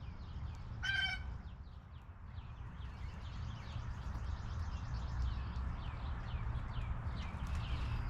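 Birds calling: a steady series of short, high, downward-sliding chirps, about two to three a second, with one louder, harsher pitched call about a second in, over a steady low rumble.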